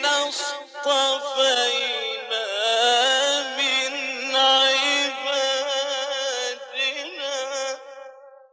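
A man chanting Quran recitation in a melodic, ornamented style, with long held notes whose pitch wavers and bends. The phrase trails off into silence near the end.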